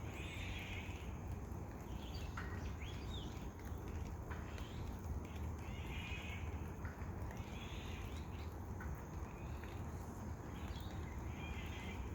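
Wild birds calling in the rain: a harsh call repeated four or five times a few seconds apart, with a few short chirps between, over a steady background of falling rain.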